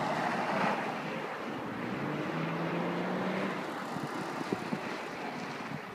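A car passing close by, its engine and tyre noise loudest in the first second and then fading. A steady engine note from another car follows for a second or so. Wind noise on the microphone runs throughout.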